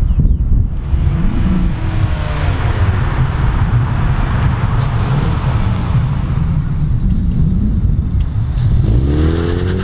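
2019 Mazda 3's 2.5-litre four-cylinder engine through a Magnaflow axle-back exhaust, accelerating toward and past the microphone with a deep exhaust note. The engine pitch climbs early on, the sound swells loudest as the car goes by, and the pitch rises again near the end. A low wind rumble on the microphone runs underneath.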